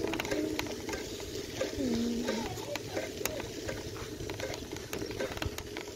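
Bicycle tyres rolling over frosty pavement: a steady gritty crackle with scattered small clicks and a low rumble underneath.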